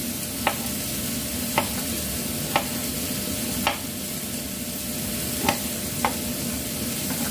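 Kitchen knife slicing fresh ginger on a cutting board: six sharp knocks of the blade hitting the board, about a second apart, over a steady background hiss.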